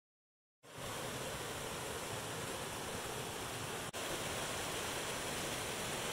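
Small mountain creek cascading over rocks, a steady rushing and splashing of water that starts after about half a second of silence. It breaks off for an instant about four seconds in.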